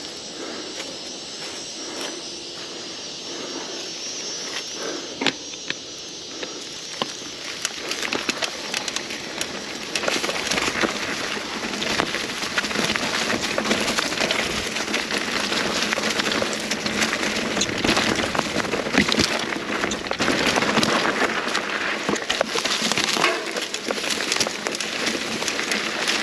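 Mountain bike rolling along a dry forest singletrack, heard from its handlebar: the knobby tyres crackle and crunch over leaf litter, bark and twigs, with rattles from the bike. It is quieter at first and gets louder and busier from about eight seconds in.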